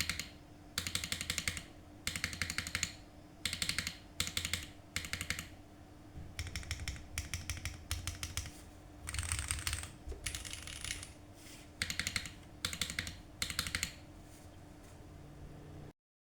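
MonsGeek M1 mechanical keyboard with Cherry MX Black switches being typed on in quick bursts of keystrokes, with short pauses between bursts.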